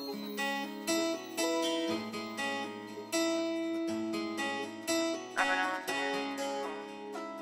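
Instrumental outro music: plucked notes played in a steady pattern over held lower notes.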